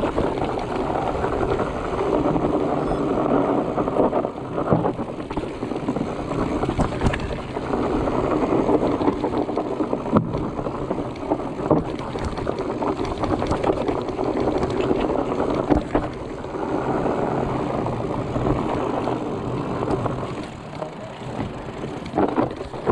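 Fat bike rolling fast down a dirt singletrack: a continuous rumble of the tyres on the ground, with the bike knocking and rattling over bumps all the way through.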